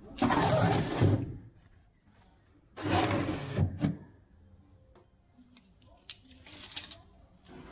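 Three scraping, rustling noises, each about a second long, from a moulded fibreglass piece being handled and slid into place against the deck.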